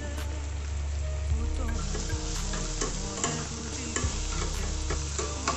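Vegetables and eggs sizzling in a hot kadai while a metal slotted spatula stirs them, its scrapes and knocks on the pan sounding as irregular sharp clicks over the steady frying.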